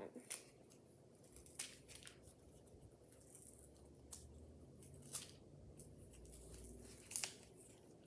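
Faint scattered clicks and rustles of a small package being handled in the hands, irregular, with one sharper click near the end.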